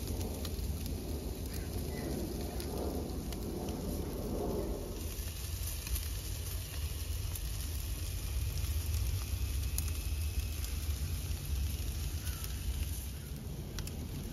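Skewered beef short ribs sizzling over a fire, with fat hissing and the fire crackling in small ticks, under a steady low rumble. The hiss turns brighter about five seconds in.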